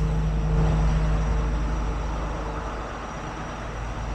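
A truck's engine running: a steady low rumble with a hum that is strongest in the first couple of seconds and then dies down.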